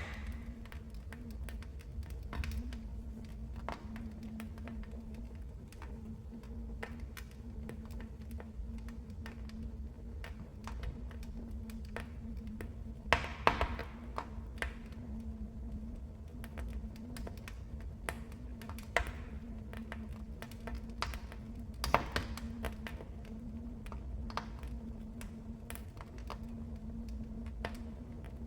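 Wood fire in a fireplace crackling, with a steady run of small irregular pops and a few louder snaps about halfway through and again later, over a steady low rumble.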